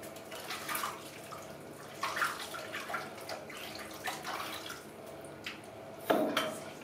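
Soapy bathwater in a sink sloshing and splashing as hands wash a baby monkey, in irregular bursts, the loudest splash about six seconds in.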